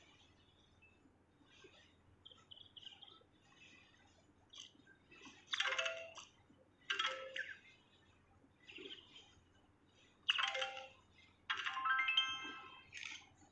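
Bird calling: four loud calls, each about a second long and the last one held longest, with fainter chirps in between.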